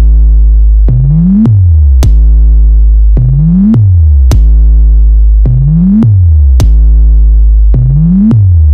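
Very loud electronic bass-test music: a deep sustained synth bass that swoops up and then drops in pitch about every two seconds, with a sharp hit in each cycle, four times over.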